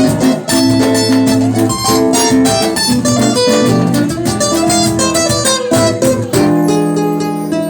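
Live band music: an acoustic guitar plays an instrumental passage with plucked notes over chords, ending on a held chord.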